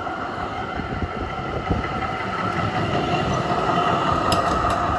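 A Melbourne electric tram runs past close by on street track, a steady high whine over the rumble of its wheels on the rails, growing louder as it comes level. There are a few sharp clicks about four seconds in.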